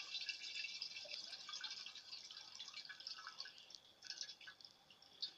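Water churning and splashing in a glass round-bottom flask, stirred by an overhead stirrer driven by a hand-blender's DC motor, with a faint steady high whine. The sound dies away gradually as the supply voltage is turned down and the stirrer slows.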